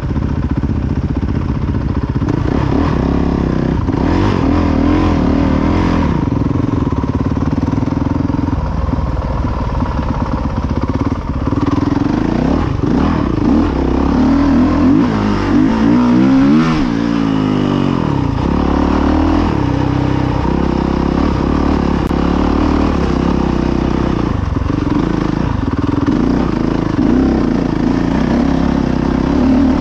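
Dirt bike engine heard from on the bike while riding a rough trail, the revs rising and falling with the throttle, with a quick rev up and back down about halfway through.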